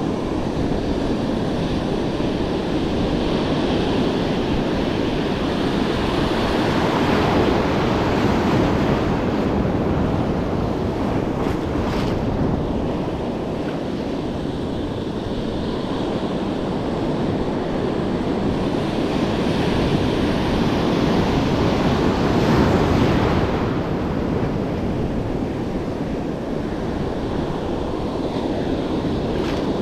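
Ocean surf breaking and washing on a sandy beach, a steady rush that swells as bigger waves come in, with wind buffeting the microphone.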